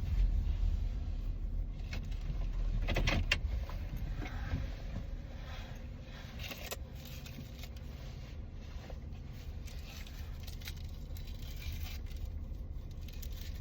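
Low car engine rumble heard from inside the cabin, easing off after the first few seconds, with scattered rustles and small clicks of things being handled.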